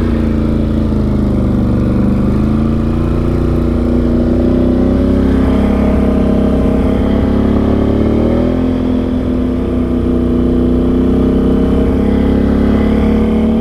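Can-Am Outlander XMR 850 ATV's V-twin engine running under way, its revs easing off in the first couple of seconds and climbing again a little past eight seconds in.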